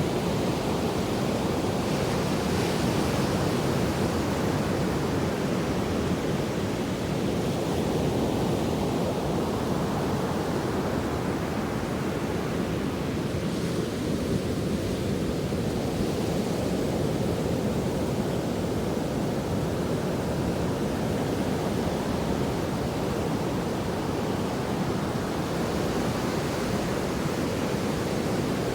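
Sea waves washing on the shore: a steady roar of surf that swells slightly now and then, with no bird calls standing out.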